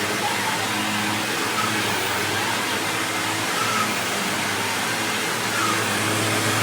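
1999 Hoover WindTunnel Self-Propelled Ultra upright vacuum cleaner running steadily: a constant motor hum under a rush of air.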